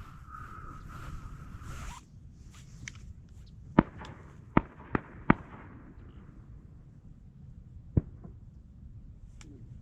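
Shotgun shots from nearby duck hunters: four sharp cracks in quick succession, a few tenths of a second apart, with a fading echo, then one more shot a few seconds later. A steady high hum stops abruptly about two seconds in.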